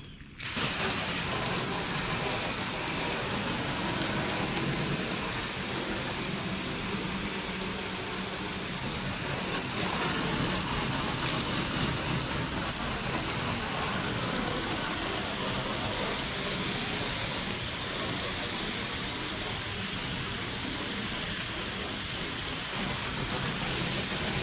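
Garden hose spraying water onto the riveted metal side panel of a box truck, a steady hiss and splatter that starts about half a second in. The side is being rinsed down so the cleaner goes on evenly.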